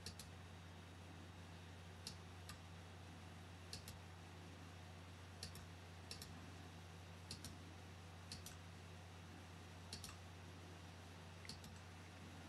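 Computer mouse clicking, about ten short, sharp clicks a second or two apart, many heard as a quick press-and-release pair, over a faint steady low hum.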